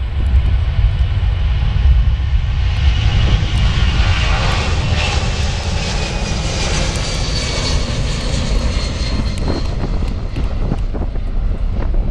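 Boeing C-17 Globemaster III's four Pratt & Whitney F117 turbofans at takeoff power as it lifts off and climbs overhead: a loud, deep rumble with a high whine that falls in pitch as the jet passes.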